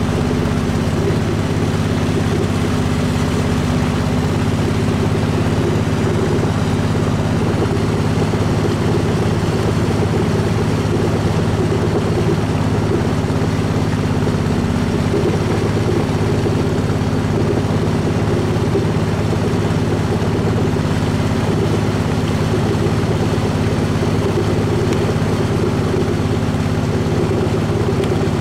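Small river boat's engine running steadily under way, a constant low drone with no change in speed.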